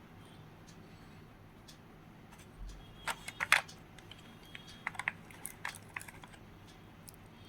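Light clicks and taps from handling a new smartwatch and its packaging, in two quick clusters a few seconds in, with a couple of faint short tones among them.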